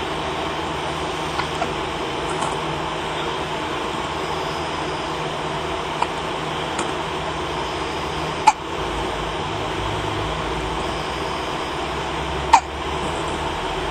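Baby hiccupping: short, sharp hiccups, the two loudest about four seconds apart in the second half, with fainter ones earlier, over a steady background hum.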